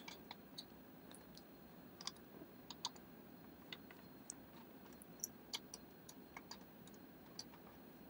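Faint, scattered small clicks of a screwdriver working small screws out of a hard-drive mounting against near silence, roughly a dozen light ticks spread irregularly over the seconds.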